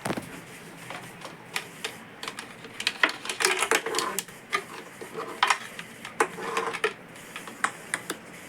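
Irregular clicks, taps and clatter of hard parts being handled, busiest and loudest from about three to seven seconds in.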